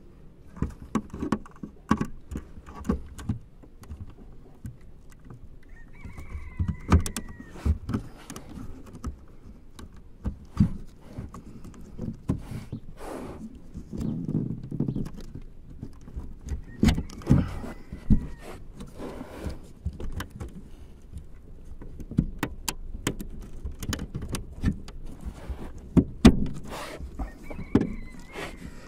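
Plastic clicks, taps and rubbing as the Audi's third brake light housing is handled and pressed into its clips along the rear window, with a few short squeaks.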